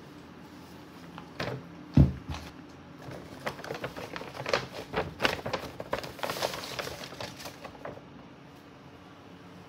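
A sharp thump about two seconds in, then a run of crinkling and rustling from a brown kraft-paper shopping bag being handled and opened, dying away near the end.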